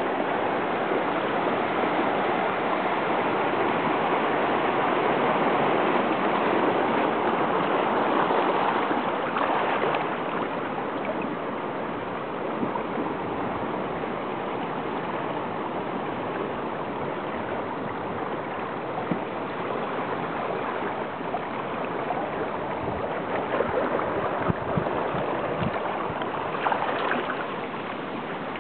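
Seawater rushing and washing over the rocks of a tide pool, a steady swash that is louder for the first nine seconds or so and then eases a little. Scattered sharp ticks come near the end.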